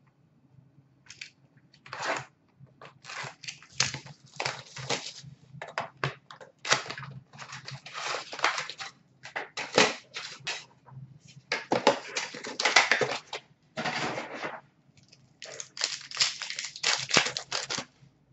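Trading-card packs being torn open by hand, their wrappers tearing and crinkling in a long run of irregular crackling rustles.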